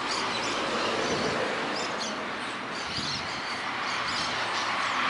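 Birds chirping and calling, many short high chirps scattered throughout, over a steady background hiss of city noise.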